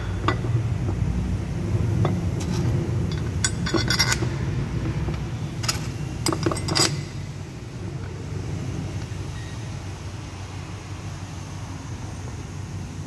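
Metal oil pump parts and a metal tool clinking and tapping as they are handled, a scatter of sharp clinks over the first seven seconds, loudest in two short clusters. Under it a steady low rumble.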